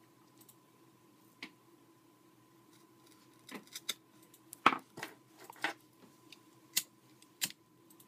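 Small scissors snipping the end of 550 paracord at an angle: a single snip, then a quick run of sharp snips about halfway through. Near the end come two sharp clicks as a lighter is struck to melt the cut end.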